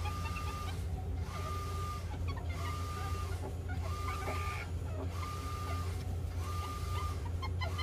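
A steady beep repeating about every second and a quarter over a constant low hum, with faint high squeaks scattered through it.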